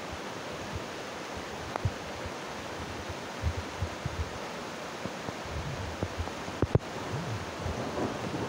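Steady rushing of a muddy river in flood, flowing fast over rocks. Occasional low thumps on the microphone, more of them near the end.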